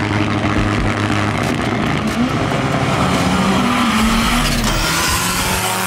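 Drag-racing cars at full throttle, engines loud and rising in pitch as they accelerate down the strip.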